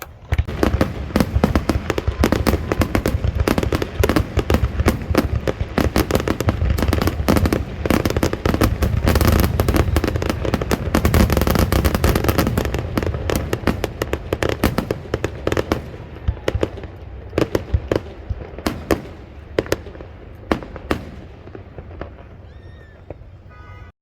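Aerial fireworks going off in a dense, rapid barrage of bangs and crackling. After about sixteen seconds it thins to scattered single booms, which stop a few seconds before the end.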